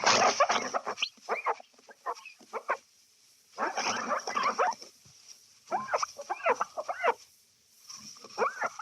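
Window glass being wiped, the cleaner squeaking against the glass in runs of quick squeaks that bend up and down in pitch, with pauses of about a second between runs.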